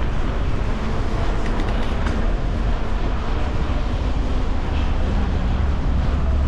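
Steady low rumble of a bicycle ride picked up by a bike-mounted camera: tyre rolling noise and wind on the microphone, a little heavier near the end, with a few faint rattles.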